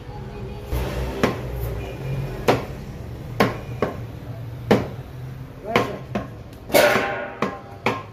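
Meat cleaver chopping beef on a wooden chopping block: about ten sharp, irregular blows, roughly one every half second to a second.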